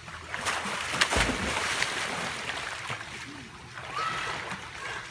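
A splash into a swimming pool: a sudden hit about a second in, then churning, sloshing water for a couple of seconds that dies down.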